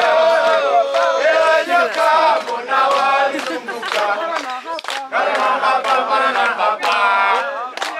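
A group of men's voices singing and chanting together: Kilimanjaro porters and guides singing with a crowd of climbers. The singing dips briefly about halfway through, then picks up again.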